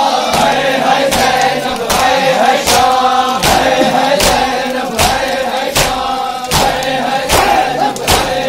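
A crowd of men chanting a mourning lament in unison while beating their chests together, the slaps landing sharply on an even beat a little faster than once a second.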